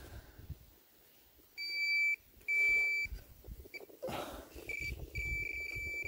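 Handheld metal-detector pinpointer beeping over buried metal: two half-second beeps about two seconds in, a short blip, then a near-continuous beep from about five seconds in as the probe closes on the target. A brief scraping noise comes about four seconds in.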